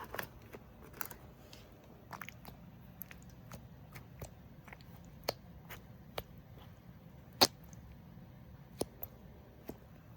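Scattered small crinkles and clicks from a squishy toy and its packaging being handled, with one sharper click about seven seconds in.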